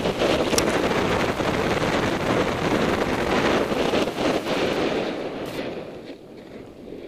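Wind rushing over a helmet camera's microphone, with a snowboard scraping over packed snow on a fast downhill run. The rush dies down from about five or six seconds in as the rider slows.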